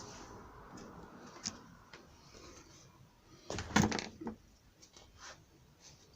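Scattered light clicks, then a short burst of knocks and clatter about three and a half seconds in, like objects or tools being handled and set down.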